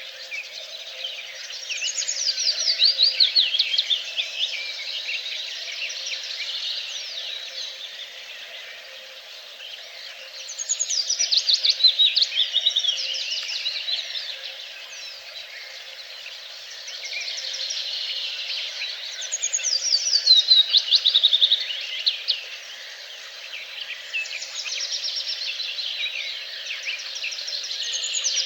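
A songbird sings a loud phrase of rapid notes that fall in pitch, repeating it four times about every eight to nine seconds. Other birds chirp in the background throughout, over a faint steady low hum.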